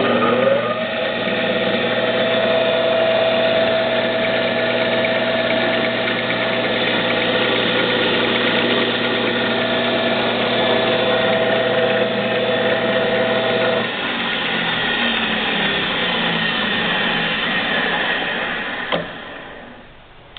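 PRAZI SD400 bench lathe running under its own power: it spins up with a rising whine at the start, then runs with a steady whine. About two-thirds of the way through the whine drops out while the machine noise carries on. Near the end there is a click and the sound dies away.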